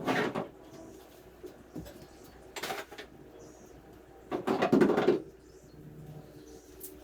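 Gear being lifted and moved about in a jon boat: three separate bouts of knocking and clattering, the last and loudest lasting about a second.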